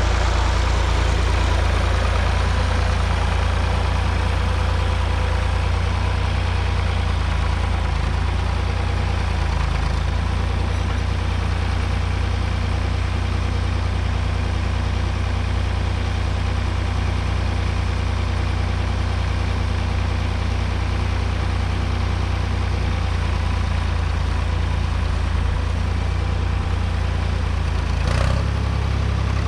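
Tractor engine running steadily at a constant speed, with a brief change in its note near the end.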